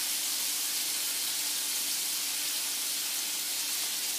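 Scallops frying in browned butter in a nonstick pan, a steady, even sizzle.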